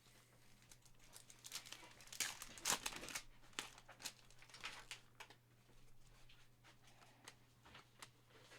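Foil trading-card pack wrapper being torn open and crinkled, a faint cluster of rustles loudest about two to three seconds in, then scattered light handling clicks.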